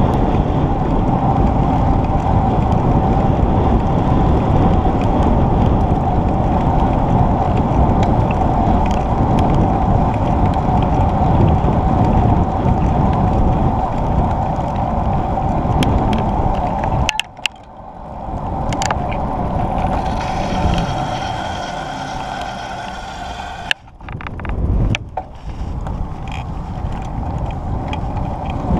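Riding noise from a bicycle on an asphalt cycle path: wind rushing over the microphone and tyre rumble. It drops off sharply twice in the second half and then builds back up.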